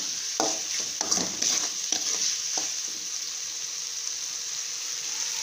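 Onion, tomato and capsicum masala sizzling in oil in a metal kadai, stirred and scraped with a spatula several times in the first couple of seconds, then frying steadily. The oil has separated from the masala, the sign that it is fully fried.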